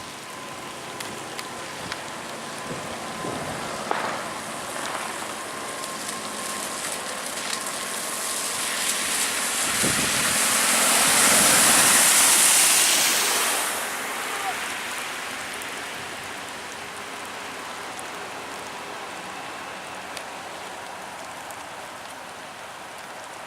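Steady rain hiss, with a car driving through deep flood water: the spray from its tyres swells over several seconds, is loudest near the middle, and fades away. A faint steady high tone sounds through the first third.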